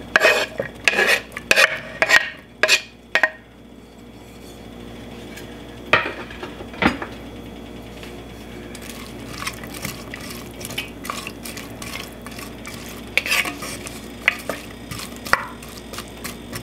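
A wooden spoon scrapes chopped garlic off a wooden cutting board into a clay pot with a few sharp knocks. Onions and garlic fry quietly in olive oil in the clay pot. Through the second half a wooden spoon stirs them, scraping against the pot.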